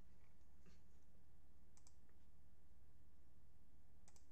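A few faint clicks of a computer mouse, two of them in quick pairs, one pair near the end, over a steady low electrical hum.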